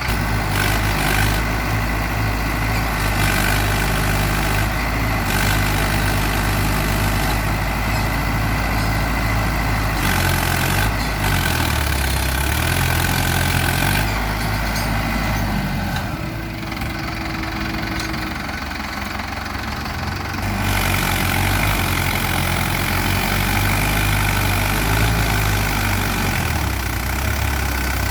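Heavy diesel machinery engine running steadily. Its note shifts in the middle, briefly quieter, then picks back up.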